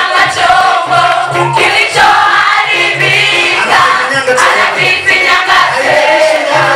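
A choir singing a gospel praise song, voices together in a steady, loud performance.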